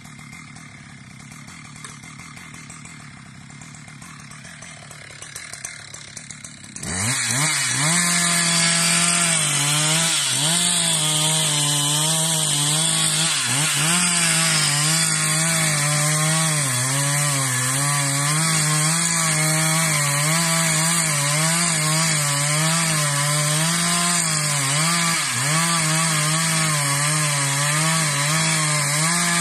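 Husqvarna 372 XP two-stroke chainsaw. After a quieter stretch it revs up sharply about seven seconds in, then runs at full throttle cutting into a tree trunk, its pitch dipping and recovering as the chain takes load.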